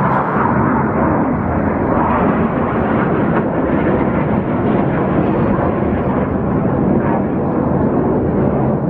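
Steady, loud jet roar of RAF Red Arrows BAE Hawk T1 jets and their Adour turbofan engines passing overhead in display, heard from the ground.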